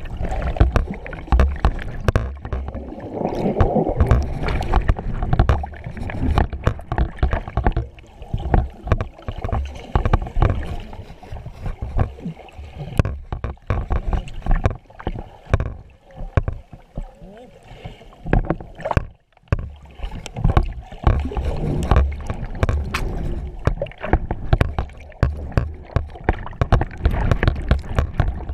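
Muffled underwater water noise picked up by a camera held below the surface: dense sloshing and gurgling with many irregular knocks, from a snorkeller swimming close by. The sound drops out briefly about two-thirds of the way through.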